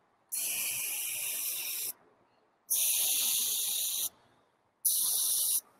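Aerosol spray-paint can hissing in three bursts: the longest about a second and a half, then another of about a second and a half, then a shorter one, each starting and cutting off sharply as the nozzle is pressed and released.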